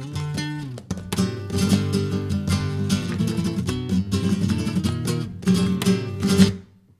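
Flamenco guitar playing alegrías, strummed chords mixed with picked notes in a driving rhythm. It cuts off sharply near the end for a brief silence.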